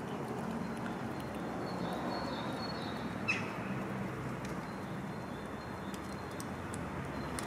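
Steady outdoor street ambience with a low hum, and a single short bird chirp about three seconds in.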